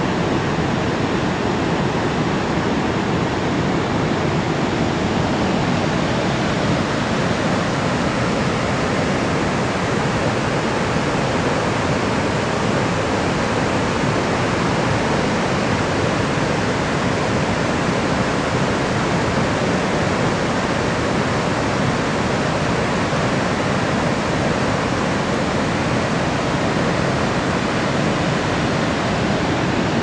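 Niagara Falls: a loud, steady rush of heavy falling water.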